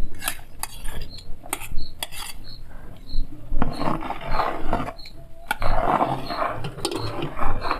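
A spoon tapping and scraping against a strainer as guajillo chile sauce is pushed through it: sharp clicks first, then two longer stretches of scraping. A faint high peep repeats about every two-thirds of a second.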